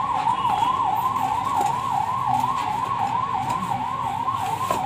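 Siren-type electronic tone that rises and falls quickly, about three times a second, and goes on without a break.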